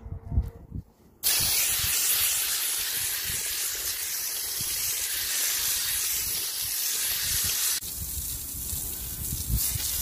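Pistol-grip garden hose nozzle spraying water onto an air-conditioner condenser coil, rinsing dirt out of the fins from the outside. The spray starts with a loud hiss about a second in and turns a little duller near the end.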